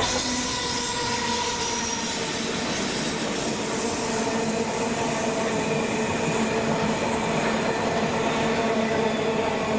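Freight train running past, a Class 70 diesel locomotive dragging a failed Class 56, with steady whining tones over the rumble and clatter of wheels on rail.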